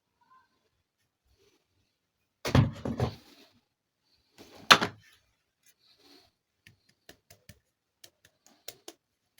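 Plastic toy parts and packaging being handled: a brief clatter of knocks, a single sharp click, then a run of small light clicks.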